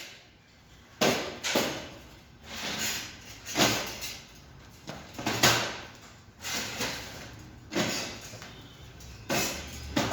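Irregular knocks and scrapes, roughly one every second, from metal parts being handled and worked.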